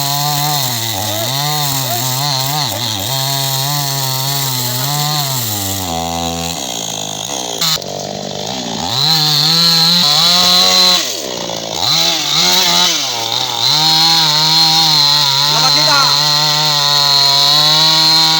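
Chainsaw running under load while cutting wood, its engine pitch rising and falling as it bites. About six seconds in it drops briefly toward idle, there is a sharp click, and then it revs back up and cuts on.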